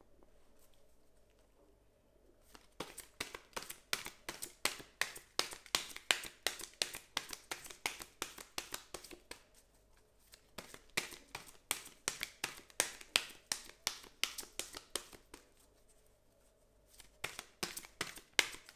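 A deck of angel oracle cards being shuffled by hand: quick runs of soft card slaps, about three or four a second, broken by two short pauses about ten and sixteen seconds in.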